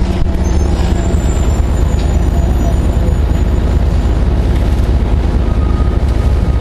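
Orion VII low-floor hybrid transit bus running, a steady low drone of its engine and drivetrain. Buses of this batch sound 'jacked-up', and this one most of all.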